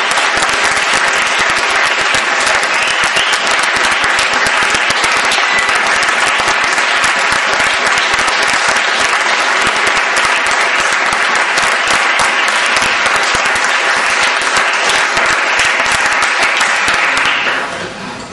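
Audience applauding, a dense, steady patter of many hands clapping that dies away shortly before the end.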